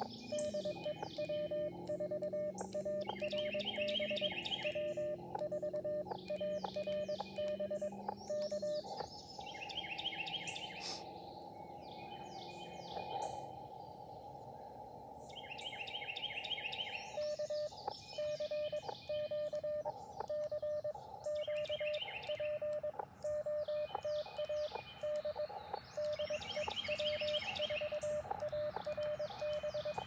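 Elecraft KX2 transceiver's CW sidetone: a steady mid-pitched beep keyed into Morse code dots and dashes, calling CQ. It stops about nine seconds in and gives way to receiver hiss while listening for a reply, then resumes about seventeen seconds in. Birds chirp repeatedly over it.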